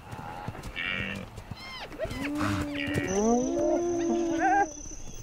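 Wildebeest bellowing and moaning in distress while lions attack it: drawn-out, wavering low calls over the second half, the loudest about 3 to 4.5 seconds in.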